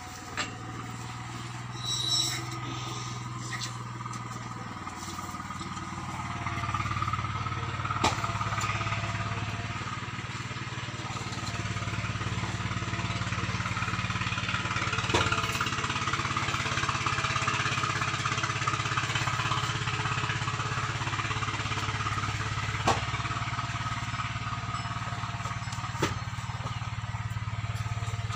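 Milk squirting by hand from a cow's teats into a small steel pot, a hissing spray, over a steady low engine-like hum, with a few sharp clicks.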